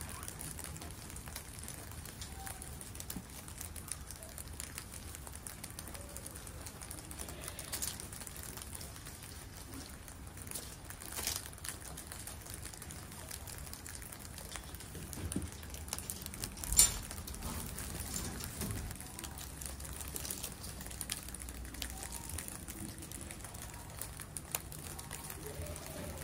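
A crowd of guinea pigs munching on evergreen oak leaves: a dense, steady patter of small crunching clicks with leaves rustling. One sharper click stands out about 17 seconds in.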